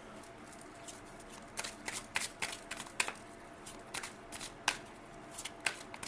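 Tarot cards being handled: an irregular run of short, crisp papery clicks and snaps that starts about a second and a half in.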